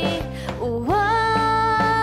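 Cantonese pop ballad: a female vocalist sings over band accompaniment, sliding up about a second in into a long held note.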